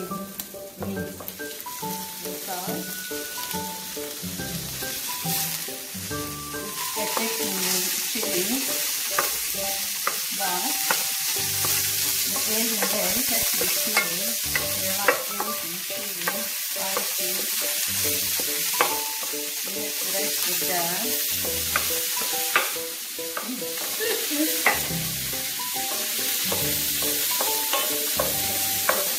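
Raw minced beef sizzling in hot oil with browned onion in an electric frying pan, with a wooden spoon scraping and knocking against the pan as it is stirred and broken up. The sizzle grows louder about seven seconds in.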